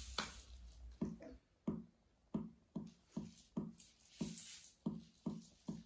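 Steady percussion beat: low knocks about two and a half a second, beginning about a second in, counting in a song.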